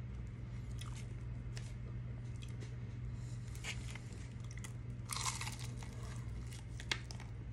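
Biting into and chewing crispy fried chicken, the breaded coating crunching in scattered crackles. The loudest crunch comes about five seconds in, with another sharp crunch near the end, over a steady low hum.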